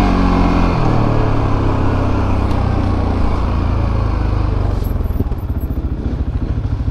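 CF Moto ATV single-cylinder engine running at low road speed. The revs drop in the first second, then it runs low and steady, settling into a quick, even pulsing beat near the end.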